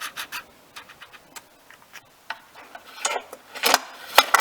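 Light mechanical ticks, then a run of sharper clicks and knocks from about halfway through, as the lawnmower engine and its spark plug are handled for a spark test.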